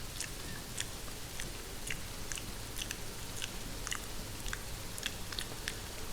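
Close-miked mouth sounds of hair being chewed and bitten: scattered crisp clicks and crunches, two or three a second, over a steady hiss of rain falling on a greenhouse.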